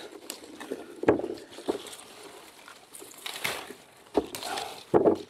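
Irregular rustling and crackling with a few short, sharp knocks, from branches, leaves and berries being handled while aronia is picked by hand.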